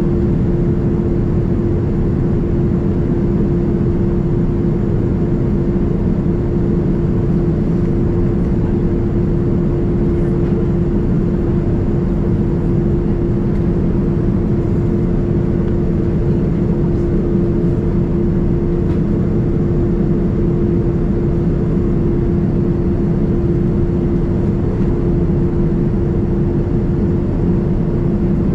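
Steady cabin drone inside a Boeing 787-9 Dreamliner heard from a window seat: a deep, even rumble of engine and airflow noise with a constant humming tone running through it.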